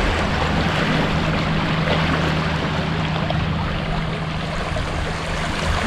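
Small lake waves lapping and washing over a rocky, cobbled shoreline: a steady rushing wash, with a low steady hum underneath.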